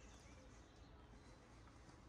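Near silence: faint outdoor background noise with a few faint, short high chirps.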